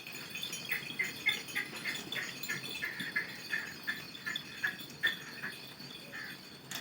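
Hands working a wire joint onto the motorcycle's battery lead: a quick run of light scratching strokes, about four a second, that dies away about five seconds in.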